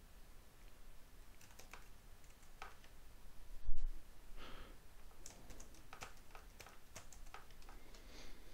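Computer keyboard keys typed in short irregular clicks, with one louder low thump a little under four seconds in.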